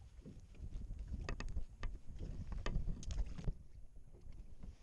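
Clicks and knocks of a freshly caught perch being handled and unhooked in a small boat. They come in a run from about one to three and a half seconds in, over a low steady rumble.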